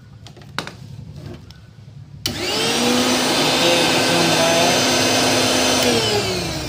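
A couple of light clicks, then a mixer grinder's universal motor is switched on about two seconds in. It spins up quickly to a loud, steady high whine and runs freely, its jammed shaft loosened. Near the end it is switched off and winds down with a falling whine.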